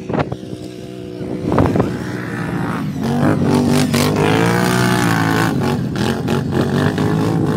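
Off-road vehicle's engine revving as it drives up a steep sand dune, its pitch climbing and then dropping, with gusts of wind on the microphone.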